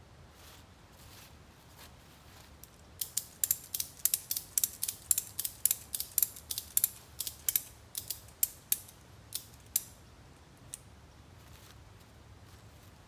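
Ratchet on a Tentsile tree tent's webbing strap being cranked to tension the strap: a quick run of sharp clicks, about three or four a second, starting about three seconds in and thinning out a few seconds later.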